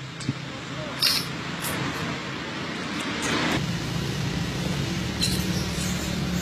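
Toy remote-control car's small electric motor whirring steadily, with a short sharp sound about a second in. A little past halfway the hiss drops away and a steadier low hum carries on.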